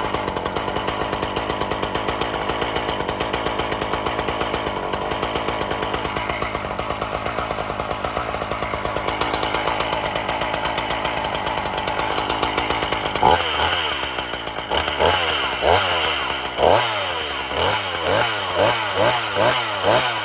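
A warmed-up Ryobi two-stroke gas chainsaw runs steadily. From about two-thirds of the way through, the throttle is blipped over and over, the engine revving up and dropping back, with the revs coming quicker near the end.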